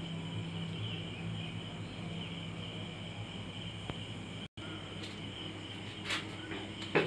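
Quiet background: the steady high chirring of insects over a low steady hum, broken by a momentary gap about four and a half seconds in.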